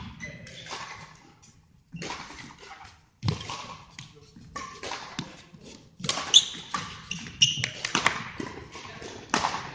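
Badminton doubles rally: irregular sharp racket strikes on the shuttlecock and thudding footsteps, busier from about six seconds in, with court shoes squeaking briefly on the hall floor.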